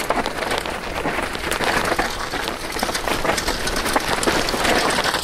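Downhill mountain bike rolling fast over a rocky trail, picked up by a handlebar-mounted camera: a continuous dense rattle and clatter of tyres on loose stones and the bike's chain and frame.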